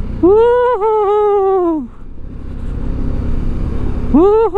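A man's voice lets out two long, excited wordless cries, each rising then falling in pitch. Underneath is the steady low rumble of a motorcycle being ridden.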